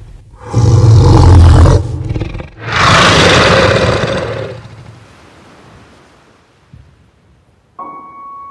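Two loud, deep roaring rushes of sound, the first with a heavy low rumble and the second a broader, hissier rush, each lasting over a second. Near the end a ringing, bell-like mallet note starts.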